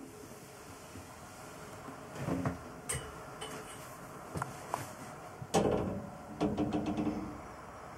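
Wooden cabin door and locker doors on a small yacht being handled: a series of knocks and clunks, the loudest about five and a half seconds in, followed by a short rattle.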